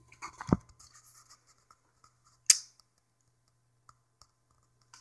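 Small clicks and rustles of fingers handling a tiny WS2812 LED board and its wires on a desk, with a dull bump about half a second in and one sharp click about two and a half seconds in.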